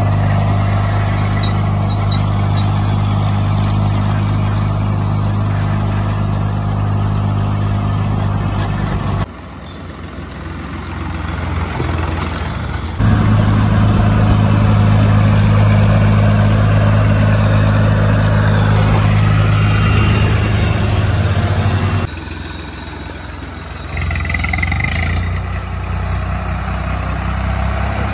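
Swaraj 742 NXT tractor's diesel engine running steadily with a low hum. The sound drops away abruptly about a third of the way in and again near the end, then comes back just as suddenly each time.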